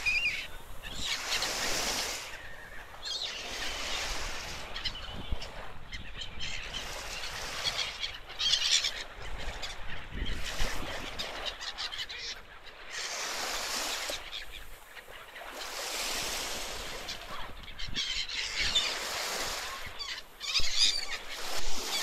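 A flock of black-headed gulls calling harshly and continually, with small waves washing onto the shore in slow swells beneath. The calling grows louder near the end.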